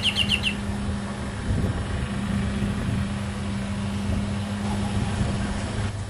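A steady low machine hum over a low rumble, stopping just before the end. A small bird's rapid chirping trill ends about half a second in.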